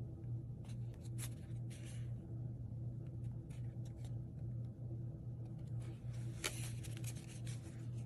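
Hands handling a kraft-cardboard glasses box, its surfaces rubbing and scraping in short rustles, with a denser run of scraping near the end as the inner box slides in its sleeve. A steady low hum runs underneath.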